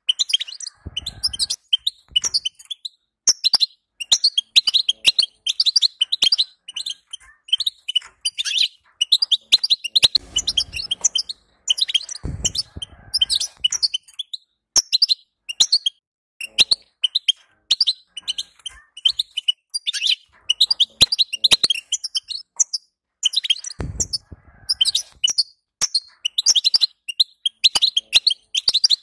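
European goldfinch twittering: a fast, unbroken stream of short, high chirps and trills. A few brief low thumps come through, about a second in, twice near the middle and once near the end.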